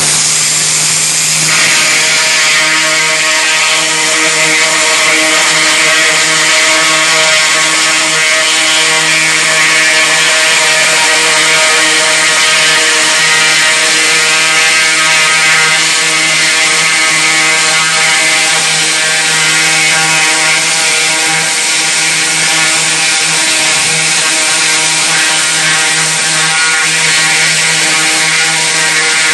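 Ultra-high-pressure water jet at about 1000 bar stripping paint from steel paint-booth gratings: a loud, steady hiss of the jet over the steady drone of the high-pressure pump unit.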